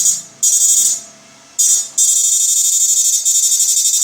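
Electric fish-shocking machine's IGBT inverter giving a loud, high-pitched electric buzz. It cuts in and out in short bursts about half a second long, then holds on steadily from about halfway.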